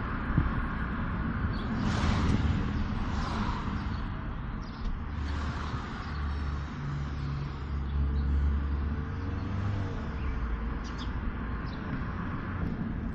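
Stock 2018 Audi A5 engine running at low revs, a steady low rumble with a few swells of noise.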